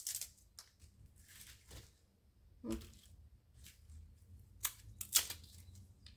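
A small knife cutting into and stripping the sheaths off thin bamboo shoots, with the husks rustling: a few short, separate scraping strokes, the loudest right at the start and about five seconds in.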